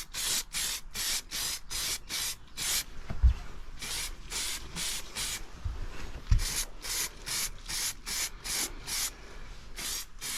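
Aerosol can of high-temperature black exhaust paint sprayed in short bursts, about three a second, in runs with brief pauses, laying light coats on a motorcycle exhaust. Two low thumps break in, about three and six seconds in.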